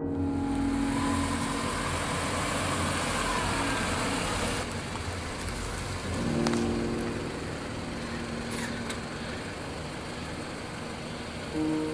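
A car driving, with steady engine and road noise.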